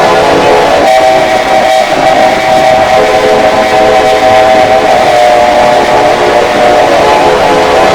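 A loud, sustained horn-like chord of several steady tones sounding together, held unbroken, with slight shifts in the blend about one and three seconds in.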